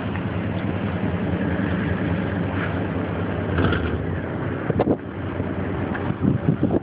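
A vehicle engine running steadily with a low hum, as a truck plows snow. A few short knocks come about five seconds in and again near the end.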